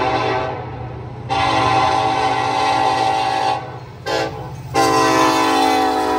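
Locomotive air horn blowing the grade-crossing signal. The tail of one blast is followed by a long blast, a short one, and a final long blast that is held on. A steady low engine rumble runs beneath.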